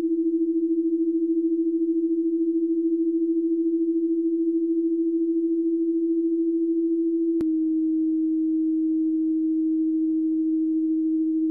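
A steady electronic pure tone, low-pitched and pulsing evenly in loudness. About seven seconds in, a single click sounds and the tone steps slightly lower in pitch and holds steady.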